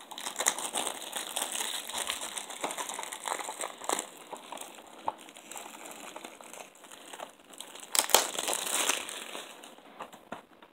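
Plastic packaging crinkling and rustling as a Blu-ray case is unwrapped by hand, with a louder spell of crinkling about eight seconds in.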